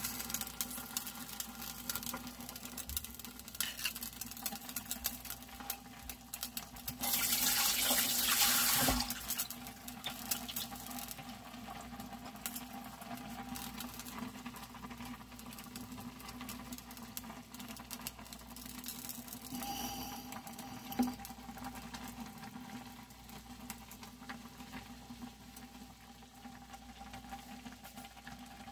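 Ramen broth boiling in a glass saucepan, a steady bubbling with many small pops. About seven seconds in, a louder hiss rises for about two seconds, then the bubbling goes on.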